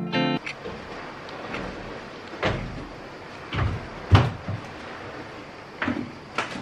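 A music cue cuts off just after the start. Then a few scattered knocks and thumps over faint room noise, the loudest about four seconds in.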